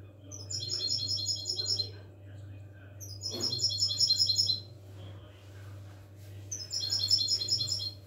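European goldfinch singing: three bursts of rapid, evenly repeated high twittering notes, each about a second and a half long, over a steady low hum.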